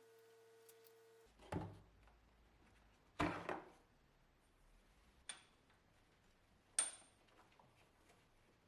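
Metal tools or parts being handled: four separate knocks and clinks, the last two ringing briefly. A steady hum cuts off about a second in.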